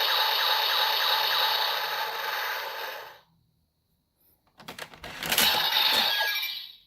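Electronic sound effect from a DX Cyclone Riser toy transformation belt, playing a loud rushing noise that cuts off abruptly about three seconds in. After a short silence come a few sharp plastic clicks, then another rushing burst near the end.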